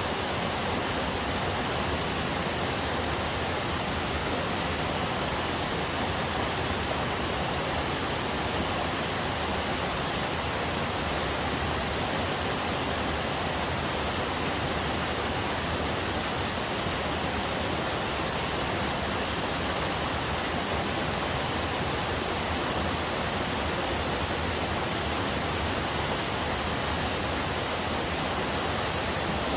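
Small forest waterfall on a river, water pouring and splashing in a steady, unbroken rush.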